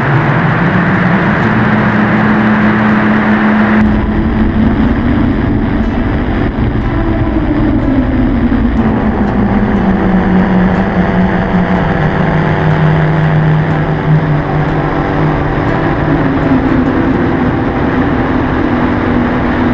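Microlight trike's engine and pusher propeller droning in flight, with heavy wind rush on the microphone. The engine note sags partway through and climbs again near the end.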